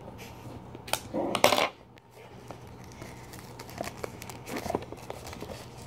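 Small scissors cutting into a box's packaging, with one sharp, loud cut about a second and a half in, then light clicks and rustling as the box and its wrapping are handled.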